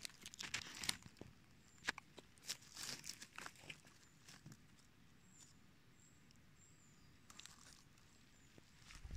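Dry leaf litter and twigs rustling and crackling under a hand and knees in the forest floor, with several sharp snaps in the first few seconds, then quieter. A few faint, short high chirps around the middle.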